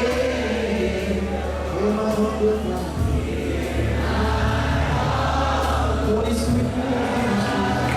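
Live gospel music: a choir singing with band accompaniment and a steady bass.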